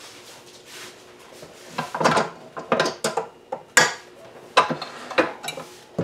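A KitchenAid stand mixer's stainless steel bowl and paddle being taken off the machine: a string of separate metal clanks and clicks, starting about two seconds in.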